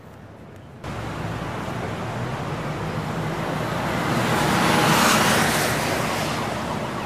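A rushing noise that cuts in suddenly about a second in, swells to its loudest around the middle and then slowly fades.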